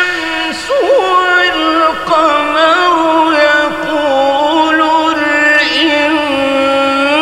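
Male voice reciting the Qur'an in the melodic mujawwad style, drawing out long vowels whose pitch bends and turns in ornaments, in unbroken sung phrases.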